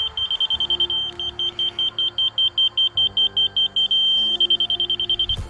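Laser-level grade receiver beeping rapidly in a high chirping pattern, switching to a steady tone about a second in and again around four seconds in, the receiver's on-grade signal. An engine runs steadily underneath, and the beeping cuts off suddenly near the end.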